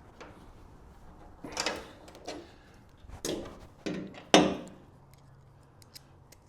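About five separate knocks and clunks of hand-tool work on the truck canopy's bolts, done with a small bit-holding ratchet; the loudest comes about four and a half seconds in.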